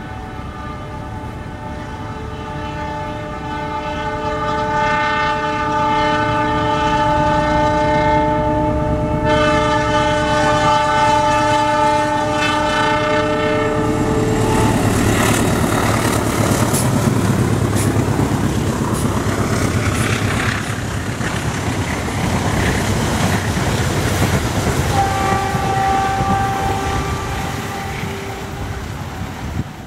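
GE CM20EMP (CC 206) diesel-electric locomotive sounding its multi-tone horn in one long blast of about fourteen seconds, the long "Semboyan 35" horn signal. The locomotive and its coaches then pass close by, with loud wheel rumble and clickety-clack on the rails. A shorter steady tone sounds again near the end.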